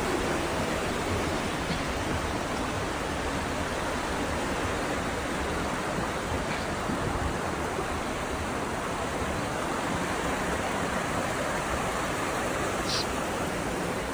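Steady rush of a mountain stream tumbling over boulders close by.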